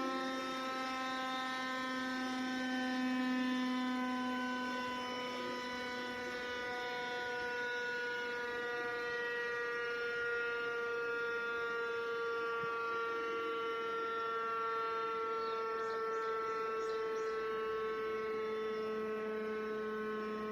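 Electric motor siren sounding a long, steady tone for the 6 p.m. time signal, its pitch sagging slowly downward.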